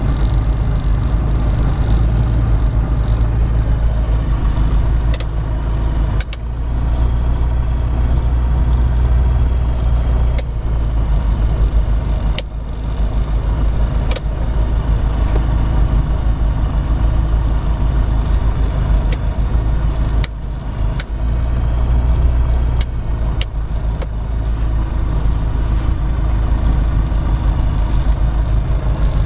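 Light aircraft's piston engine running steadily on the ground, heard from the cockpit, with a few brief dips in its note and scattered light clicks. The engine keeps running when the magnetos should shut it off: the magnetos are live, so nothing stops it.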